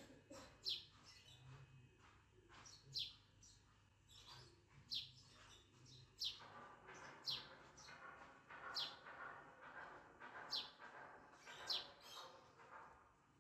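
Faint bird chirps, short notes falling in pitch, about one every second or so. From about six seconds in, quiet scraping and handling noise as a small plastic cooling fan is pried apart with a screwdriver.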